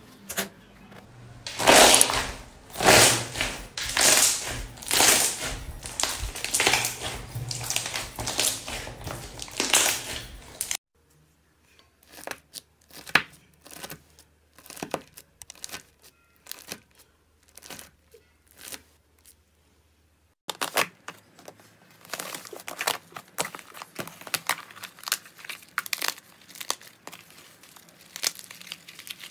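Slime being worked by hand. It starts with loud wet squishing and popping as red slime is pressed and squeezed. A quieter stretch of sparse sharp pops and clicks follows, then dense crackling and crinkling as a cracked green crust over blue slime is broken apart.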